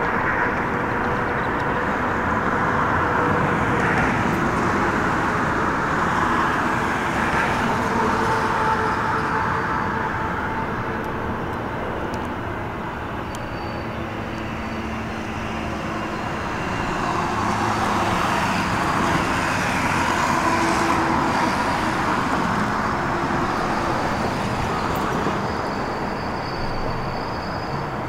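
Steady outdoor rumble of city traffic and rail-yard noise, with faint whining tones that come and go.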